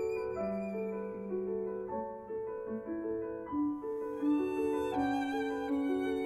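Violin playing a slow melody of held notes, with vibrato on the notes in the second half.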